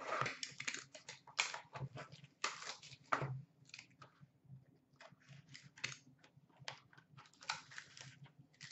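Plastic shrink-wrap being torn off a sealed trading-card box and crinkled by hand: a quick, irregular run of crackles and rustles.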